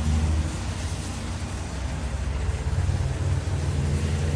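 Low, steady rumble of a car driving slowly past close by.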